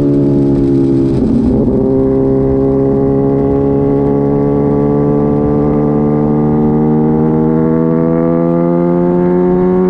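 Kawasaki ZX-10RR's inline-four engine, heard on board through an Arrow exhaust with the baffle (dB killer) removed. The exhaust note climbs slowly and steadily in pitch as the bike pulls in one gear.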